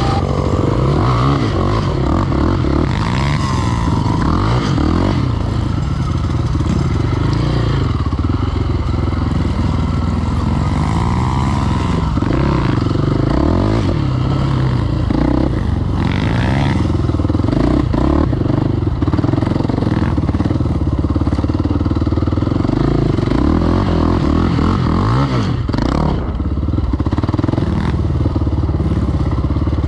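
KTM 525 XC quad's single-cylinder four-stroke engine, heard up close from the handlebars, revving up and down over and over while ridden across rough ground.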